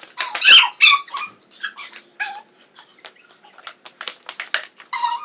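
Girls' high-pitched shrieks and squeals at being sprayed with cold water, loudest about half a second in, mixed with short hissing bursts from hand-pump pressure sprayers.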